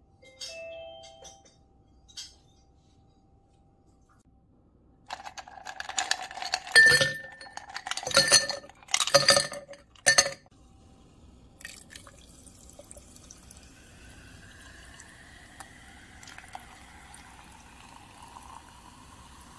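Ice cubes dropped into a tall glass, clinking loudly against the glass in a burst of strikes, then cola poured from a can over the ice. The pour is a quieter, steady fizzing splash whose pitch slowly rises as the glass fills.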